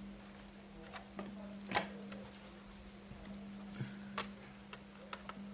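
Small sharp plastic clicks and taps as a laptop's display ribbon cable connector is worked loose from the motherboard: a few scattered clicks, the loudest a little under two seconds in, over a steady low hum.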